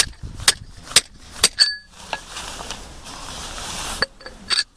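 Hammer striking a steel rod set in a concrete anchor sleeve: sharp metal clinks with a short ringing tone, about two a second at first, then a pause and a few quicker strikes near the end.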